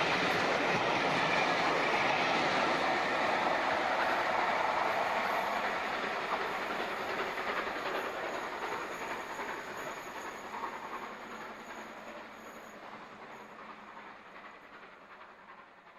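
Snowdon Mountain Railway rack train running along the line, a dense clattering rumble that grows steadily fainter from about five seconds in until it is faint at the end.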